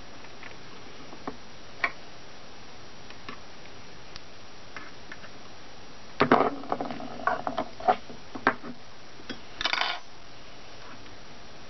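Light clicks and taps of small metal parts being handled on a small lathe, with a quick cluster of rattling clicks about six to eight seconds in and a short rustling scrape near ten seconds.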